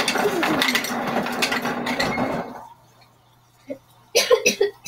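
Refrigerator door dispenser running, a rattling, clattering grind typical of ice being dispensed, which stops about two and a half seconds in. A low hum remains after it.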